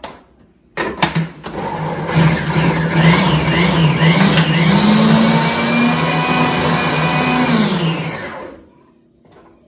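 An electric kitchen blender motor starts with a few clicks and runs hard for about seven seconds. Its pitch wavers up and down as the load shifts, then it winds down and stops near the end.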